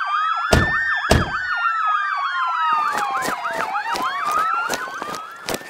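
Police siren sound effect: a fast warbling yelp over a slower wail that rises and falls, with two sharp thumps about half a second and a second in. A run of quick clicks sounds under the siren in the second half, and the siren fades away near the end.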